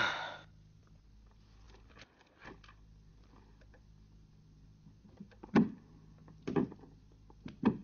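Low steady hum with a few faint clicks, then three louder dull knocks about a second apart near the end.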